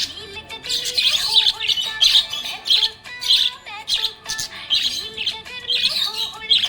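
Budgerigar chirping and warbling in a rapid, unbroken string of short calls with quick pitch slides.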